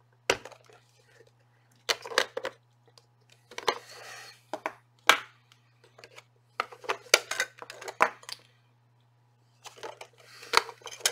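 Rechargeable AA batteries being prised out of a portable radio's plastic battery compartment and set down on a desk: a string of irregular clicks, knocks and rattles over a steady low hum.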